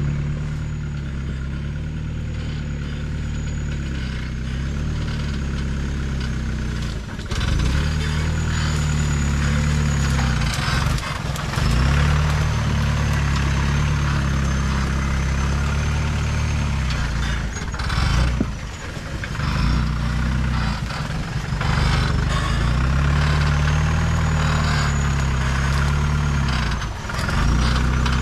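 Open-top off-road jeep's engine running at low revs as it crawls through dense brush on a rough trail, the revs rising and falling several times, with occasional knocks and scrapes.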